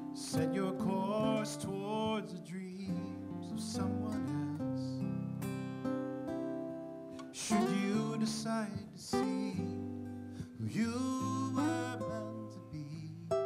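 A nylon-string classical guitar and a steel-string acoustic guitar playing an instrumental passage together: plucked notes and chords, with quick melodic runs several times.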